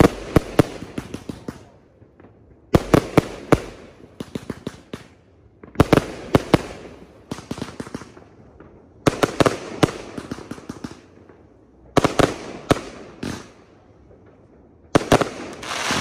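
Fireworks display going off: six volleys about three seconds apart, each a quick run of sharp bangs that fades off before the next.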